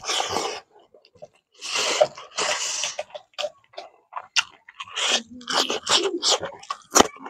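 A person eating fish curry and rice by hand close to the microphone: irregular chewing and smacking mouth noises, with two longer noisy stretches about two seconds in.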